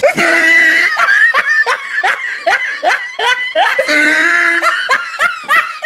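Laughter: a long run of quick, high-pitched laughs, about three a second.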